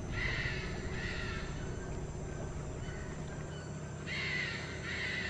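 Harsh, raspy bird calls in two pairs, one pair at the start and another about four seconds in, over a steady wild background.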